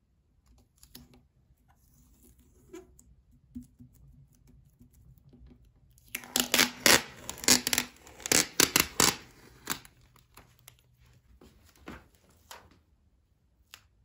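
Old book pages and clear tape being handled. There are faint scattered rustles and clicks, then about four seconds of loud crackling and crinkling from the middle on, as the taped-together strip of paper pages is lifted and bent.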